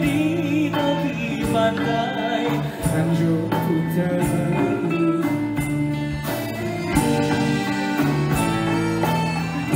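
A man singing a Malay pop-traditional song into a microphone over a live band of drum kit, keyboards and violin, with a steady percussion beat.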